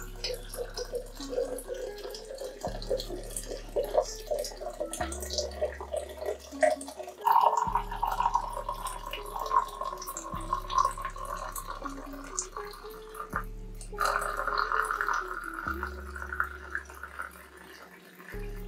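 Hot water poured in a steady stream from a metal kettle into a glass mason jar of dried lemon balm leaves, the pitch of the pour rising as the jar fills.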